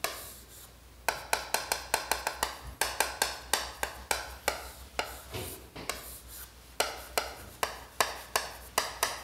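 Chalk writing on a chalkboard: a fast run of sharp taps and scratches as lines, boxes and letters are drawn, starting about a second in, with a brief pause about halfway.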